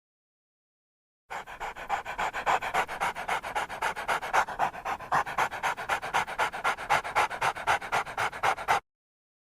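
A dog panting fast and steadily, about five breaths a second. It starts about a second in and cuts off abruptly near the end.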